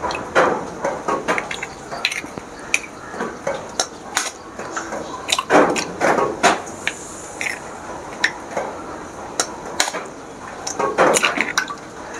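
Eggs being cracked and broken into a clay pot: a scattered series of sharp taps and cracks of eggshell, with the eggs dropping into the pot.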